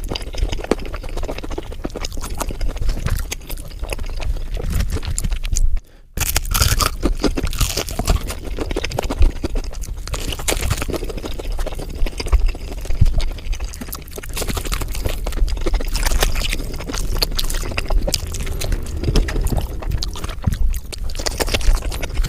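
Close-miked chewing and crunching of KFC fried food, irregular crisp crackles and mouth sounds, with a brief break about six seconds in.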